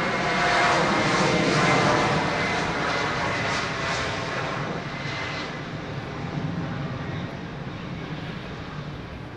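Twin turbofan engines of an Antonov An-178 transport jet at takeoff power during its takeoff roll: a loud, steady rush of jet noise with a high whine, fading as the aircraft moves away.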